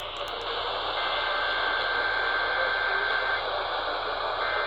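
AM radio receiver tuned to 1170 AM, giving out loud steady static hiss with no programme audible. A thin steady whistle sits in the static from about a second in, drops out for about a second late on, then returns.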